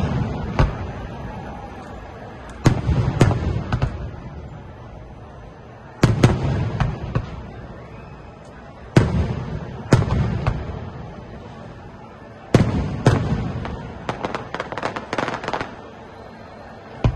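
Aerial fireworks shells bursting: sharp bangs, each with a rolling rumble after it, coming in groups about every three seconds, then a quicker run of bangs near the end.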